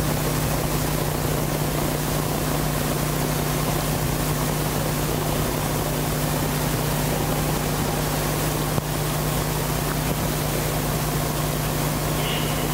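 A steady drone: a constant low hum with an even hiss over it, and one brief click about nine seconds in.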